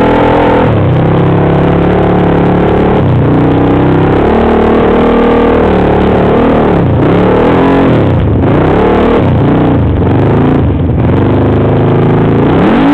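Off-road vehicle engine running loud on a trail ride. It holds fairly steady at first, then from about halfway revs up and down repeatedly as the throttle is worked.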